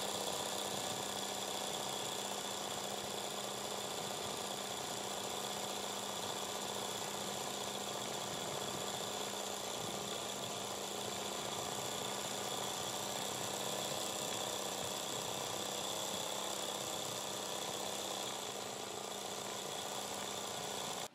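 Electric sewing machine running steadily at speed, its needle stitching rapidly through hooped fabric in free-hand machine embroidery. The sound eases slightly near the end, then cuts off suddenly.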